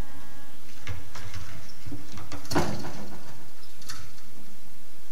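Scattered clicks and knocks, with one louder thump about two and a half seconds in. These are made as the speaker steps away from a lectern microphone.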